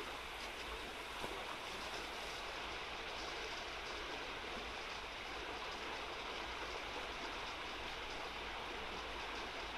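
Steady rushing of a small, fast-flowing river running over shallow riffles.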